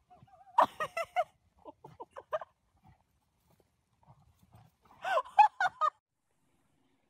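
Farm animal calls: a short bout of pulsing, wavering cries about half a second in and another about five seconds in, with a few softer calls between.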